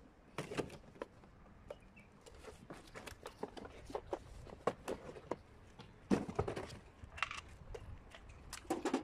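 Handling noises: irregular small knocks and rustles as a cardboard box and its packaging are picked up and moved about, with a louder cluster about six seconds in and again near the end.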